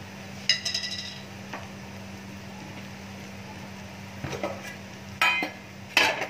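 Steel kitchen utensils clinking: one sharp, ringing metal clink about half a second in, then a few more clinks and knocks near the end, over a steady low hum.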